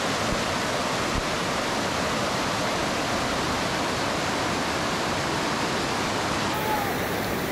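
Steady rush of water pouring and flowing over rocks at a waterfall, the modest flow of the early rainy season. The sound changes slightly in tone near the end.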